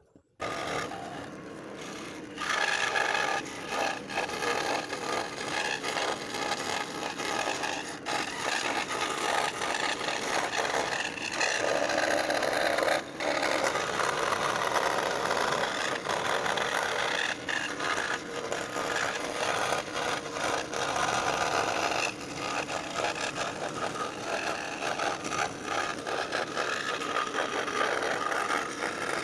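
Scroll saw running and cutting through wood, a steady rasping from the rapidly reciprocating blade. It starts about half a second in and dips briefly twice.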